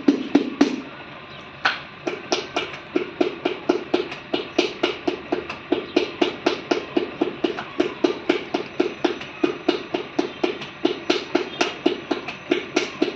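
Spinning potter's wheel clacking in a steady rhythm, about three to four knocks a second. The knocking stops briefly about a second in, then starts again with one sharper knock.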